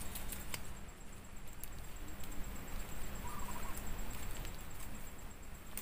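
Quiet outdoor ambience: a faint steady hum that stops about four seconds in, a few faint clicks, and a short bird call about three seconds in.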